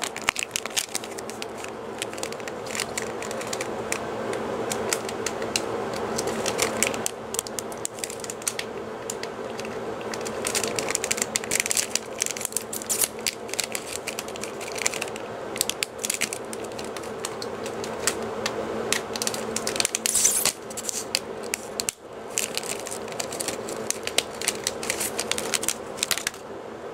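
Crackling and clicking of a foil sticker-pack wrapper being torn open and handled, and the stickers inside being shuffled. A steady low hum runs underneath.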